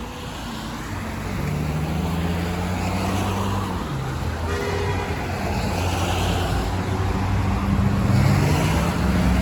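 Road traffic on a city street: vehicle engines running and passing, their pitch sliding up and down and growing louder toward the end. A short tone sounds about four and a half seconds in.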